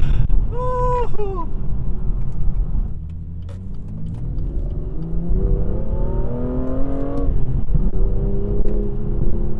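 BMW M2's turbocharged straight-six pulling hard under acceleration, its pitch climbing for about three seconds and then dropping sharply at an upshift, over a constant low road rumble. A short high tone comes about half a second in.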